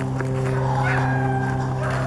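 A steady low hum with several overtones runs throughout. Over it a sled dog gives a few short, high yelps about a second in and again near the end.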